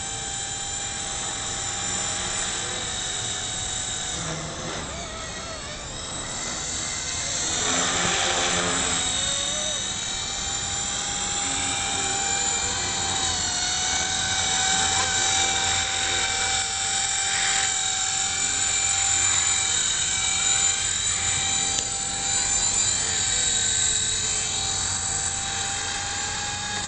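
Blade CP Pro 2 electric collective-pitch RC helicopter whining steadily from its motor and rotor, the pitch swooping up and down and getting louder about eight seconds in before settling back to a steady whine.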